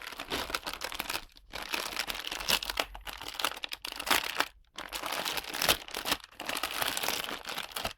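Parcel packaging being torn open and crumpled by hand: a dense crinkling and tearing with a few short pauses.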